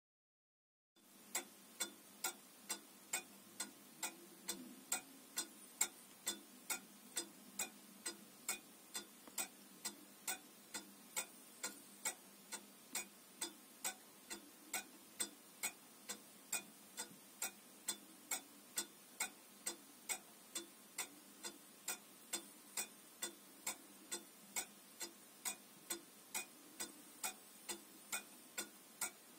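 Antique French pendulum shelf clock with a Samuel Marti movement, signed Planchon, Paris, ticking steadily at about two ticks a second. The ticking starts about a second in.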